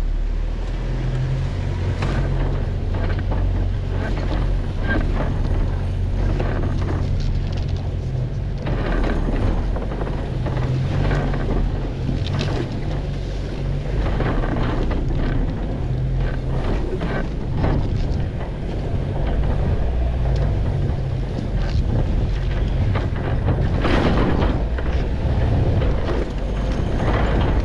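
Jeep Wrangler Unlimited engine running steadily at low revs as it crawls over rocks, with irregular knocks and crunches as the tyres and body work over the rocks and leaves.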